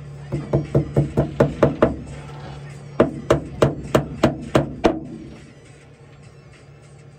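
Hammer blows in two quick runs of about seven or eight strikes each, the second run slightly slower.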